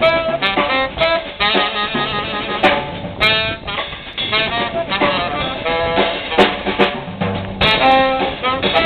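Live jazz combo: tenor saxophone playing over keyboard, upright bass and a drum kit with cymbal and drum strikes.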